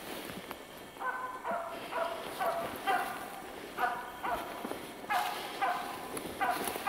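Karelian-Finnish laika barking in repeated high, yappy barks, roughly two a second, starting about a second in. This is the laika's bark at treed game, here black grouse it has found in the trees.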